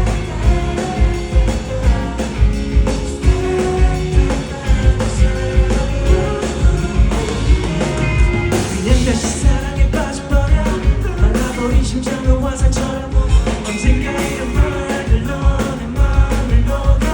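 Live band playing a pop-rock song with singing over a steady beat.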